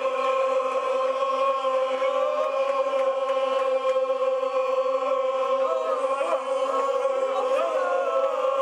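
Football supporters chanting and singing together over a steady drone, with more voices wavering in over the last few seconds.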